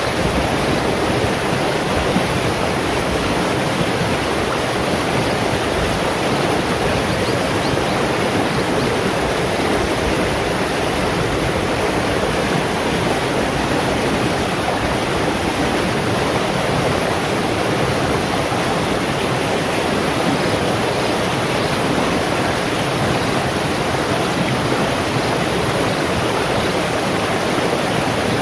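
Shallow rocky stream rushing over and around boulders in small rapids: a steady, even rush of water.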